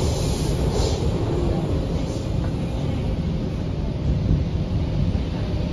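Hyundai Rotem K-Train electric multiple unit heard from inside the car while running through a tunnel: a steady rumble of wheels on rail with a faint steady hum.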